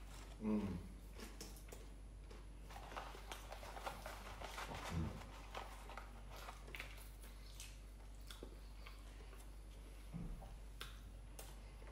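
Quiet close-up eating sounds: chewing, with small clicks and rustles as a bread roll is pulled apart by hand. A few short low sounds stand out, the loudest about half a second in and others around five and ten seconds.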